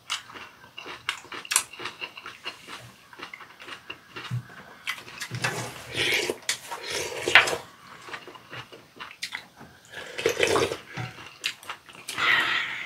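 Eating sounds from fish roe soup: spoons and chopsticks clicking against bowls, chewing, and a few wet slurps of broth, the longest in the middle and more near the end.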